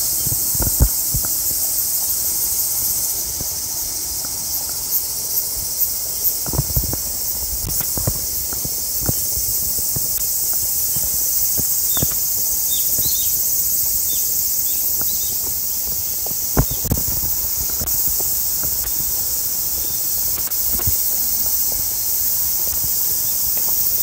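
Cicadas in full chorus, a steady high-pitched drone, with footsteps on a paved path and handling thumps underneath.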